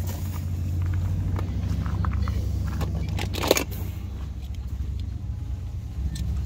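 Small die-cast toy cars clicking and clattering against each other as a hand rummages through a box of them, with one louder scrape about halfway, over a steady low rumble.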